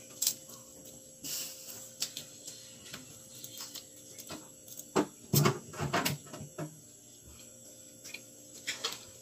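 Close-up eating sounds of cooked crab picked apart by hand and chewed: scattered small crackles and clicks of shell and meat, with a cluster of louder clicks about five seconds in.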